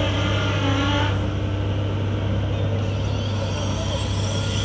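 CAT M314 wheeled excavator's diesel engine running steadily, with its hydraulics whining under load for about the first second as the bucket is worked. After that the engine runs on alone.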